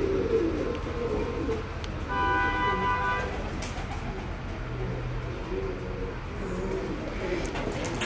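Domestic pigeons cooing continuously in a low, wavering murmur. About two seconds in, a steady horn-like tone sounds for about a second.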